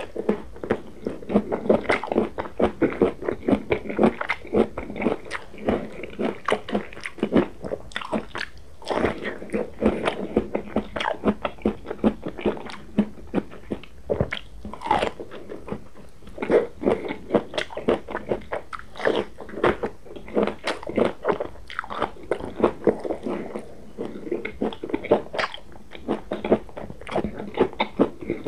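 Close-miked biting and chewing of roasted eggplant: a dense run of short mouth clicks, several a second, with brief pauses.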